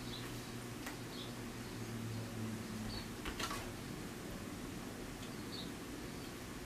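Quiet room tone with a faint steady low hum, a few faint short high chirps and a couple of soft taps or rustles.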